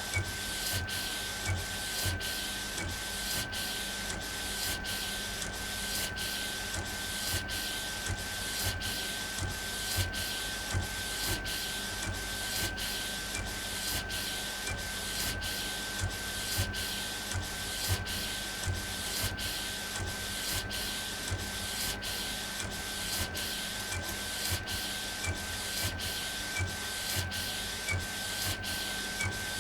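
Epson Stylus Pro 4880 wide-format inkjet printer printing. The print-head carriage sweeps back and forth in an even rhythm of about three passes every two seconds, with a short break and a low knock at each turn, over a steady high whine.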